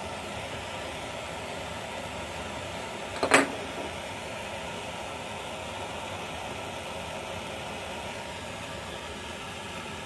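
Steady workshop background hum, with one sharp clack about three seconds in as a softened plastic screwdriver handle is worked off the shaft held in a bench vise.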